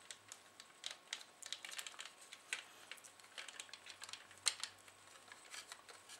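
Faint, irregular small clicks and light taps of plastic CD-mechanism parts and a wire connector being handled as a wire is plugged back in, with one sharper click about four and a half seconds in.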